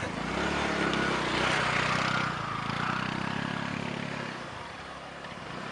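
A small engine running, its pitch shifting slightly up and down, with a rushing hiss that swells and fades about one to two seconds in.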